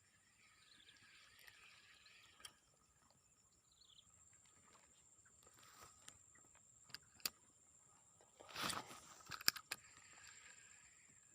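Faint outdoor ambience: short falling bird chirps and a steady high insect drone. About three-quarters of the way through comes a brief burst of rustling handling noise with several sharp clicks, the loudest sound.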